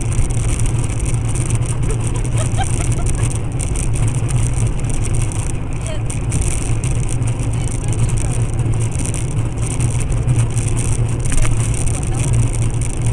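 Steady car driving noise, a low engine and road drone, picked up by a dash cam.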